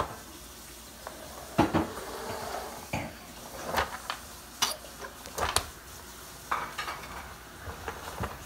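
A dozen or so irregular clinks and knocks from a toddler's toy xylophone being banged and handled, some hits ringing briefly.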